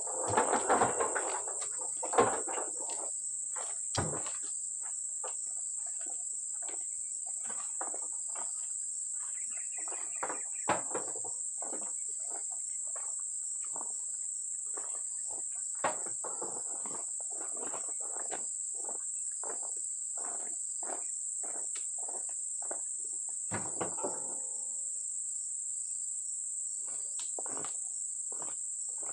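Steady high-pitched drone of insects, with scattered knocks and rustles from workers handling oil palm fruit bunches and loose fruit beside a loaded truck. The loudest knocks come a second or two in.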